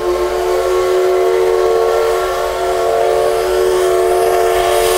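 Steam whistle of the C62 steam locomotive sounding one long, steady blast of several tones at once.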